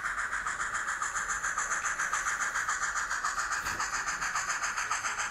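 Sound-equipped HOn3 model of a D&RG Class 70 2-8-0 steam locomotive, its speaker giving a steady rhythmic steam chuff of about six hissing beats a second as the engine approaches.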